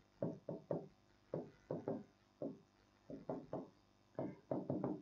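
Chalk writing on a blackboard: a string of faint, short, irregular taps and knocks as the letters are written.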